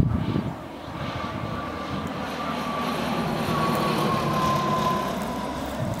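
A Cessna 152's four-cylinder piston engine and propeller droning as the plane flies by low, growing louder, with a whine that slowly drops in pitch.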